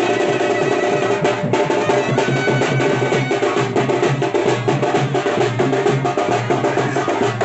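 Fast, dense drumming on frame drums, the strokes running together without a break, with steady pitched music under it.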